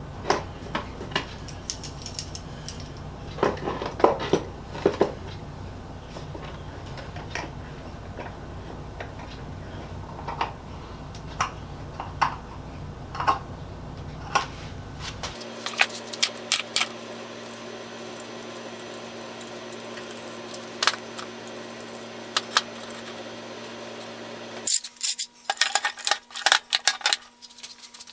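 Scattered metallic clinks and knocks of clamps being handled and set on the wooden tool box as its moulding is fitted, over a low steady hum, with a quick run of clicks near the end.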